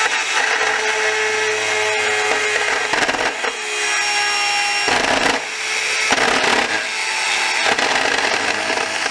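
Bosch EasyCut 12 cordless nano-blade saw running and cutting into a plastic machine housing, steady throughout with a few brief dips in level.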